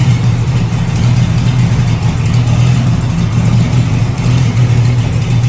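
Cammed car engine idling steadily and loud, with its exhaust leaking, as the owner says.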